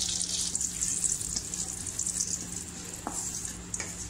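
Urad dal, mustard seeds and asafoetida powder sizzling in hot oil in a kadai for a tempering (thalippu). The sizzle is strongest at first and eases off, with a couple of pops near the end.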